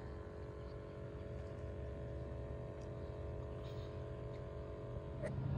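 A steady engine hum at an unchanging pitch, as from a motor running at constant speed some way off.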